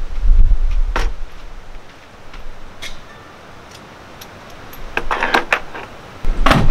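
Portable camping gas stove being handled on a metal camp table: a sharp click about a second in, a lighter click near three seconds, a burst of rattling clatter around five seconds and a loud knock near the end. Wind rumbles on the microphone at the start and again near the end.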